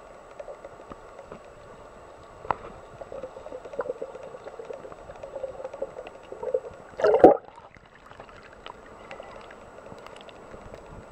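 Muffled underwater sound of the lake picked up by a submerged camera: a steady low hiss with scattered clicks. About seven seconds in there is a loud, brief rush of water as the camera breaks the surface, followed by quieter open-air sound.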